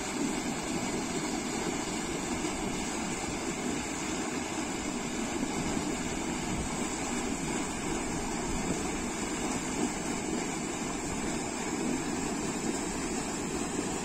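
Water flowing steadily along a canal, a constant rushing wash.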